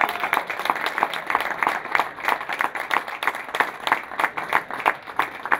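Audience applauding, a dense run of hand claps that thins out and fades toward the end.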